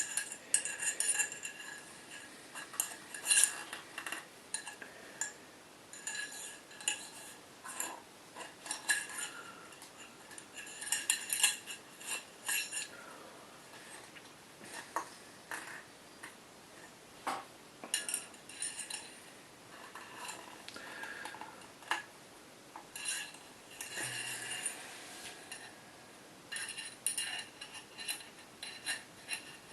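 Small metal airsoft rifle parts being handled: irregular clicks, taps and short scrapes with a light metallic ring as a barrel spacer is worked off and onto the inner barrel and hop-up.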